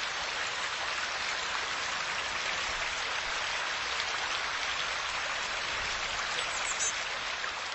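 Steady hiss of water, from falling rain or a running stream, with a few faint high chirps near the end.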